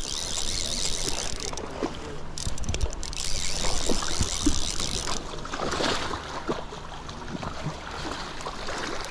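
Shallow creek water running over a gravel and stone bed, with splashing as a hooked steelhead is brought in and netted in the shallows.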